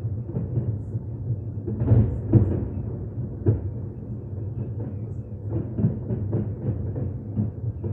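Fireworks shells bursting in rapid succession: a dense run of deep booms, with a few louder bangs about two seconds in and again a little later.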